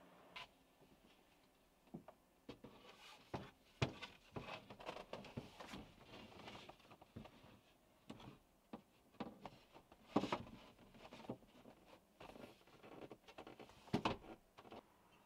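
Plywood boards being handled and fitted inside a car: faint, irregular knocks, taps and scraping of wood on wood, with louder knocks about four, ten and fourteen seconds in.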